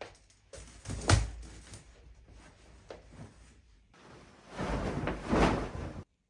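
Bedding being handled: a thump about a second in, then a long rustling whoosh of a duvet being shaken out and spread over a bed, which cuts off abruptly near the end.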